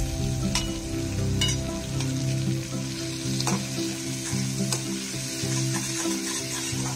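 Chopped vegetables frying in oil in a kadai, sizzling steadily, while a steel slotted spatula stirs them through newly added ground spices, scraping against the pan a few times.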